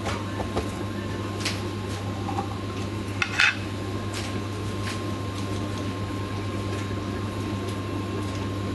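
Light clicks and clinks of kitchen dishes and utensils being handled, a few scattered through the first half with the loudest about three and a half seconds in, over a steady low hum.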